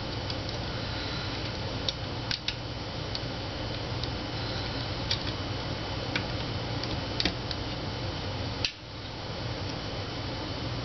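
Scattered light metallic clicks and ticks of small steel parts being fitted inside an AK-pattern rifle's receiver as the hammer and trigger pin retainer plate and wire are seated, with a sharper click near the end. A steady hiss and low hum run underneath.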